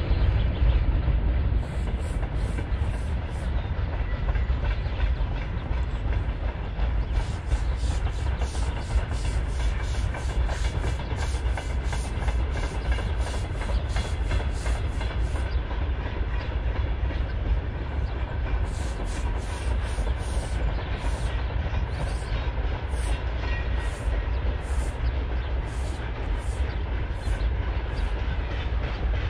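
Long freight train on the broad-gauge LHS line rolling past, with a steady low rumble and wheels clicking over rail joints in a regular clickety-clack, several clicks a second through the middle and more spaced out later.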